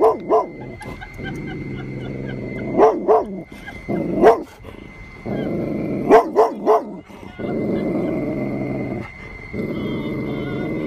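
Golden retriever growling in long, low stretches broken by sharp barks: two at the start, a pair and a single one around three to four seconds in, and three in quick succession about six seconds in. The growls and barks are hostile, aimed at a stuffed tiger.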